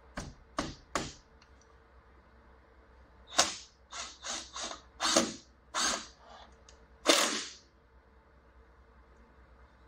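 Cordless drill driving screws through aluminium corner trim in short bursts. There are three quick bursts, then a run of about seven more a couple of seconds later, the last one longest.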